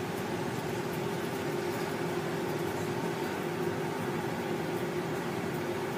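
Steady hum inside a stationary car with its engine running, with a faint steady tone through it.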